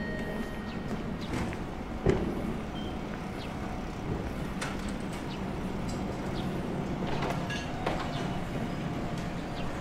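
Steady vehicle noise of a street, with a sharp knock about two seconds in and a few lighter clicks.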